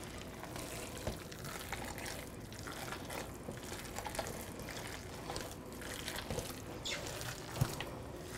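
Gloved hands squeezing and kneading raw ground meat mixed with grated vegetables in a stainless steel bowl: soft, wet squishing at an irregular pace, with one slightly louder squelch near the end.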